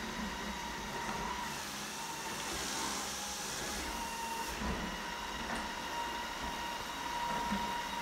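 Shark ION RV700 robot vacuum running on a hard tile floor: a steady high motor whine over the hiss of its fan and brushes. The hiss grows louder for a second or two a few seconds in.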